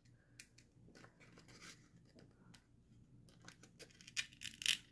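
Faint rustling and crinkling of cardstock as the paper horn of a papertoy is worked back into its slot, with two louder crackles near the end.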